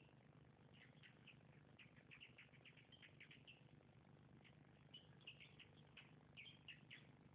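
Faint animal calls: many short high-pitched chirps a second, coming in irregular clusters, over a low steady hum.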